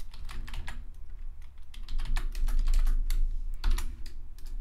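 Computer keyboard keys clicking in quick bursts as commands are typed, over a low steady hum.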